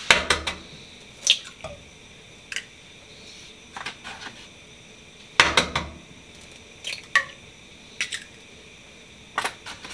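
Eggs being cracked into a nonstick frying pan: separate sharp taps and knocks of shell and hands against the pan and countertop, spread out with short gaps between them, the loudest cluster about five and a half seconds in.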